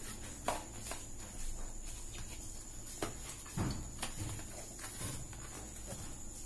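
A small blade slitting packing tape on a cardboard parcel, with scattered scratches and clicks and a few dull knocks of the cardboard on the counter, as the box flaps are pulled open.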